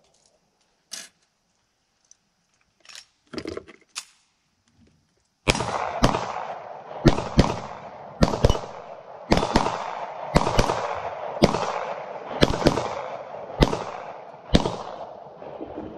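SAR9 9mm pistol firing a string of well over a dozen shots, each followed by a short echo, roughly one a second and sometimes two in quick succession. Before the shooting starts, about five seconds in, there are a few faint clicks and knocks of handling.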